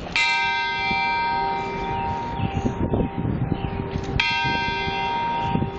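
Newly cast Helena H. Gardner tower bell struck twice, about four seconds apart, each stroke ringing on with many clear, steady overtones.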